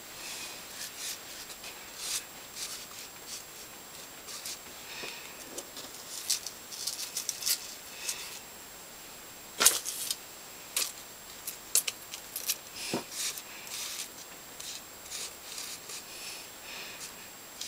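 Thin metal chain clinking and sliding as fingers drag and arrange it on a card: irregular light jingles and rubbing, with one sharper click about ten seconds in.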